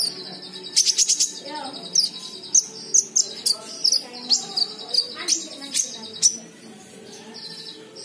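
Konin (kolibri ninja) sunbird singing: a run of sharp, high chirps about two a second, each dropping in pitch, over a thin steady high trill. The song stops about six seconds in.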